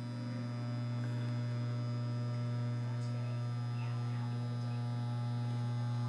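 Electric hair clipper running with a steady, constant hum while oil is dripped into its blades to flush out trapped hair.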